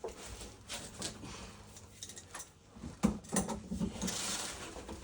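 Pipe wrench and fittings working an old, seized gas shut-off valve loose: scattered metal clicks and knocks, a sharp click about three seconds in, then scraping and rubbing as the threads turn.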